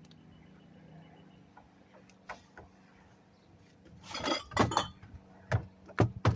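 Faint steady hum, then about four seconds in a spell of glass clinking and rattling, followed by a few sharp knocks, as a discarded item with glass in it is handled.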